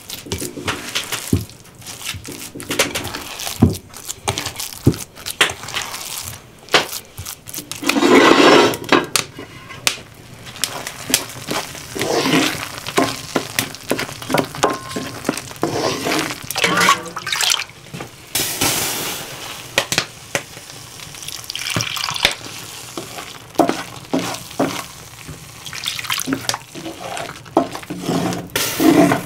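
Wooden spoon stirring and scraping thick tomato sauce in a cast-iron pan: irregular clicks and knocks of the spoon against the pan among wet, sloppy sounds of the sauce, with louder swells about 8 seconds and 19 seconds in.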